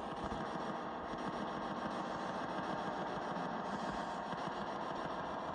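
Steady hiss of white-noise static from a ghost-hunting spirit box, running evenly with no voices coming through.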